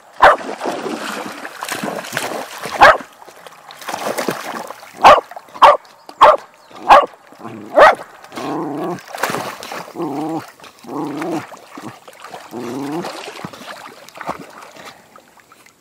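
A dog barking sharply about seven times in the first half, then giving a run of drawn-out, whining cries.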